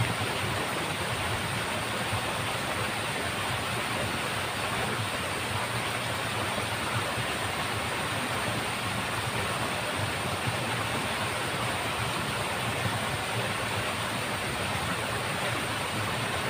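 Steady rushing noise of water flowing in a small ditch, even and unbroken, with a faint high steady hiss above it.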